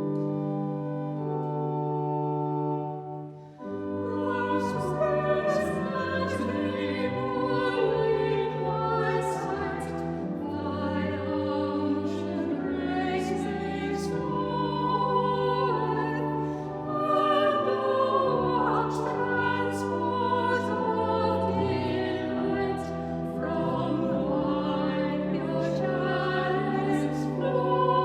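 Choir singing with instrumental accompaniment. A held chord opens it, and after a brief pause about three and a half seconds in, the voices move on through the music.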